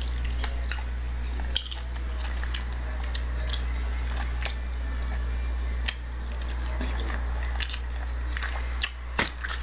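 Close-miked eating of chicken wings: biting into the meat and chewing, with many short wet clicks from the mouth scattered throughout, over a steady low hum.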